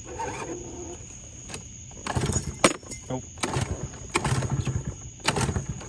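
Honda Spree's small two-stroke scooter engine stumbling and struggling to idle: after a quiet start it sputters and catches in uneven bursts about once a second. The owner takes the poor idle for a dirty carburetor.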